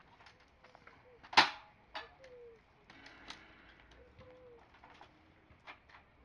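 A dove cooing in soft, low, drawn-out notes, with scattered light clicks and one sharp knock about a second and a half in.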